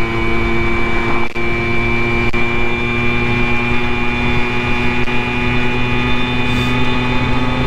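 Simson moped's single-cylinder two-stroke engine running at a steady speed under way, its pitch holding even.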